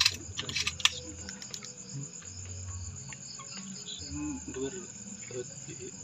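Crickets chirring in a steady high-pitched drone, with a few sharp clicks in the first second.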